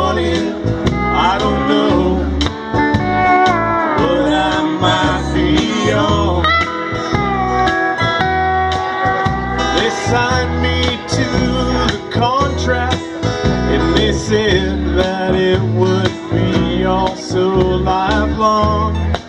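Live country-rock band playing: a steel guitar plays sliding, bending notes over electric bass, acoustic guitar and drums with a steady beat.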